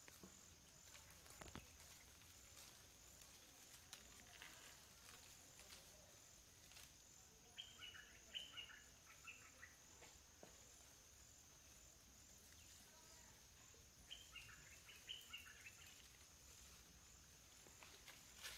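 Faint forest ambience: a steady, high-pitched insect trill runs throughout, with two short bursts of quick descending chirps, one about eight seconds in and another near fifteen seconds.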